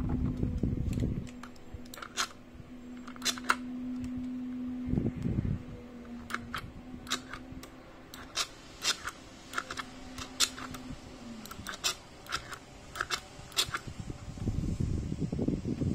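Home-cockpit Boeing 737 cut-off lever unit being worked by hand, giving a string of sharp, irregular plastic clicks as the lever moves through its detents. A faint steady hum sits underneath until about eleven seconds in.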